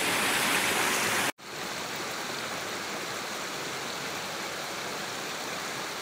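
Steady rush of water from a small forest waterfall. It breaks off abruptly about a second in and carries on as a quieter, similar rush of running water.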